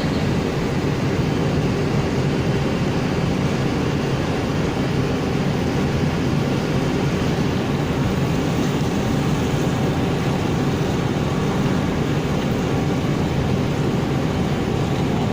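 Steady low rumble of a car ferry under way, unchanging throughout.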